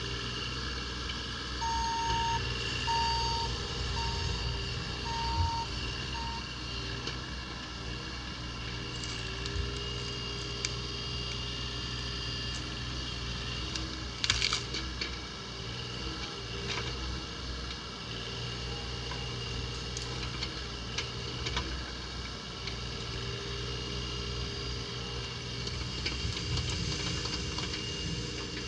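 Bobcat E35 mini excavator's diesel engine running steadily under load while the bucket and thumb dig out and pull up a pine stump. Five short beeps sound in the first few seconds, and there is a brief sharp crackle about halfway through.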